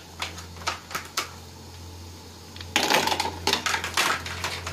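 Apple snails dropped into an aluminium pot of water, their hard shells clicking against each other and the pot: a few single clicks, then a dense clatter of shells from about three seconds in. A steady low hum runs underneath.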